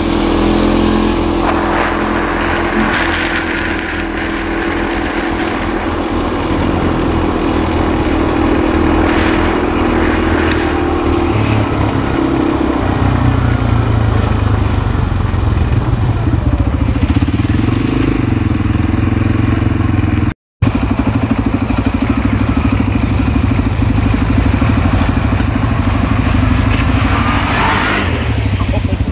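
ATV engine running while riding, its note shifting about halfway through as the throttle changes. The sound cuts out completely for a moment about two-thirds of the way in.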